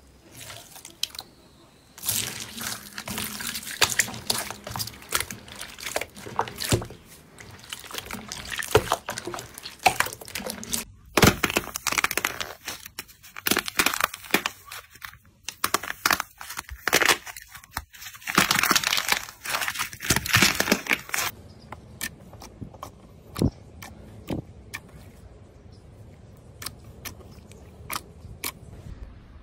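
Slime being squished and pressed by hand, giving dense wet crackling and popping clicks; near the end it thins to scattered single clicks.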